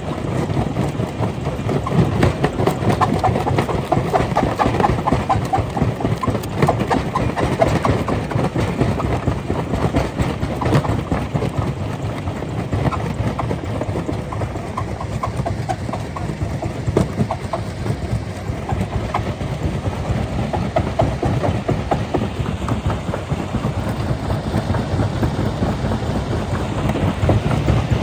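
Stone crusher running under load, with a dense, steady clatter of rock knocking and rattling through the machine.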